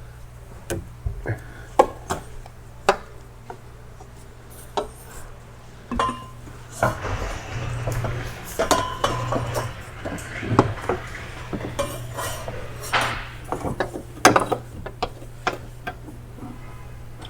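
Metal clinks and knocks of bolts and hand tools while a new drive shaft's rear end is fitted up, with a denser stretch of rattling and scraping in the middle. A steady low hum runs underneath.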